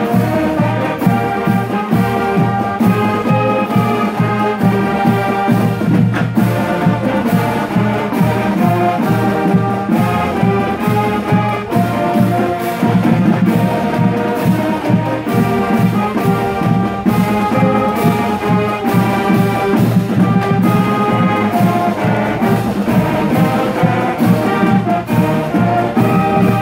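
High school marching band playing a tune: saxophones, sousaphones and other brass and woodwinds in full chords over a steady beat.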